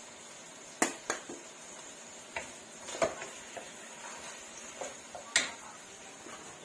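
Wooden spatula knocking and scraping against a stainless steel wok while stirring a sauté of ground beef and mushrooms: a handful of sharp, irregular clacks, the loudest about a second in and again near the end.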